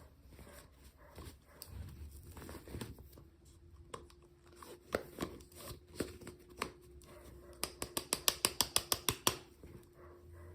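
Small plastic toy packaging being handled and opened: scattered clicks and taps, then a quick run of about a dozen sharp clicks near the end, over a faint steady hum.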